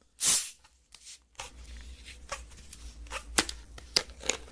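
Paper and plastic packaging handled close to the microphone. A loud brief swish comes about a quarter second in, then scattered crinkles and sharp clicks.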